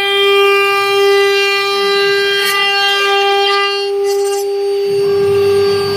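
OMNI CNC router spindle whining steadily at a high pitch with an end mill cutting a slot in 3 mm aluminum. A low rumble joins near the end.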